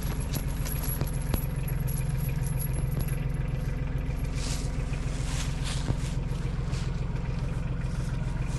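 Tractor engine idling steadily, with a few light metallic clinks of swing chain being handled.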